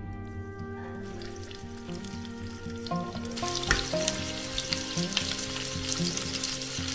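Food starts sizzling in a hot frying pan about three seconds in, a steady crackling fry, over background music.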